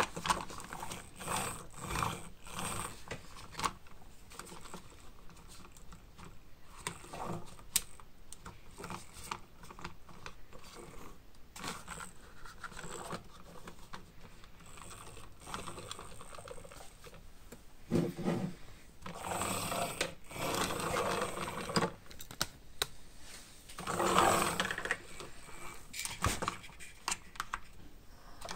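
Plastic toy excavator pushed by hand across a wooden tabletop, its plastic wheels, including a 3D-printed replacement, rolling with scattered clicks and rattles. There are longer rolling stretches past the middle and again near the end.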